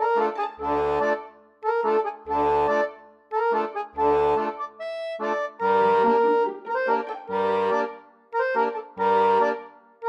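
Background music: an instrumental tune of bright sustained notes over a low bass note that comes about every second and a half.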